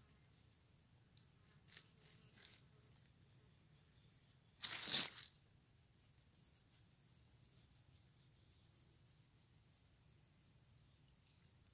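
Mostly quiet, with a few faint rustles, then one loud rustling crunch lasting about half a second about five seconds in, from a cat being petted right up against the phone on dry bamboo leaf litter.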